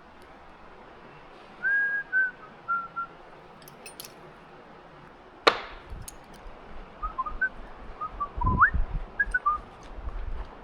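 A person whistling a few short, broken notes, with one sharp clank of metal on metal about halfway through, then a few dull knocks while the whistling picks up again.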